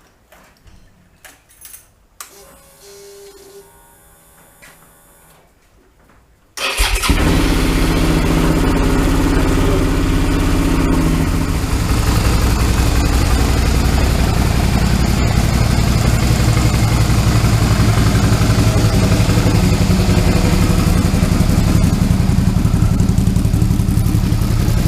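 2008 Suzuki V-Strom 650 engine with a Delkevic exhaust being started after its oil change and crash repairs. After a few faint clicks it fires about six and a half seconds in and then runs steadily at idle.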